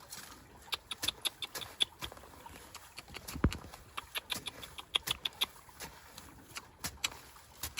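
Irregular series of sharp clicks and knocks, with one heavier thump about three and a half seconds in.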